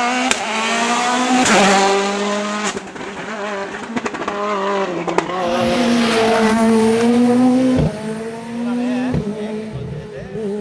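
Turbocharged rally car engine revving hard, its pitch climbing and dropping repeatedly through gear changes, with a few sharp cracks.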